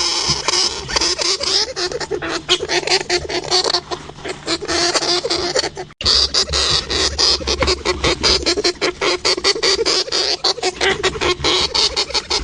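Hamster noises: a dense run of rapid clicks and high squeaky sounds, broken by a sudden cut about six seconds in, then going on again.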